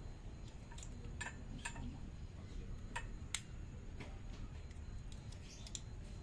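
Small metallic clicks and taps from brake pads and caliper parts being handled as brake pads are fitted into a bicycle's disc brake caliper: about half a dozen scattered clicks, the sharpest about three and a half seconds in.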